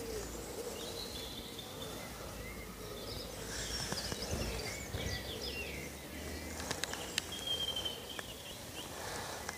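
Small birds chirping and singing in short phrases, with one held whistled note late on, over a low steady outdoor rumble.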